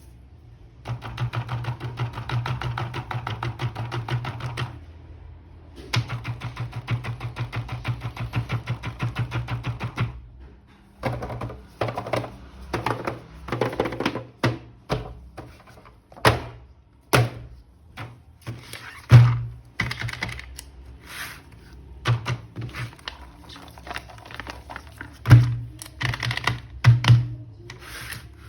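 Two runs of rapid, even clicking, each about four seconds long, then irregular clicks, taps and a few louder knocks of plastic toys and packaging being handled.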